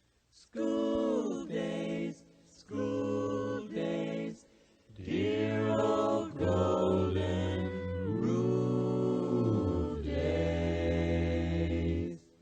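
A group of voices singing a short harmonised opening in three phrases, the last a long held chord that cuts off near the end.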